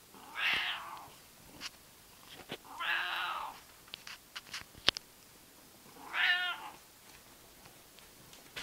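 Seal point Siamese cat meowing three times, each a drawn-out cry of about half a second, a few seconds apart, the last one wavering in pitch. A few short sharp clicks fall between the second and third cries.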